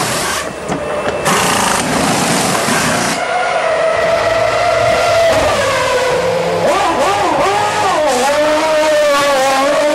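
Formula 1 car's Mercedes 2.4-litre V8 held at high revs in the pit box during a stop delayed by a problem engaging neutral, the revs wavering up and down and climbing near the end. In the first three seconds a hiss with short gaps, from the pit crew's pneumatic wheel guns.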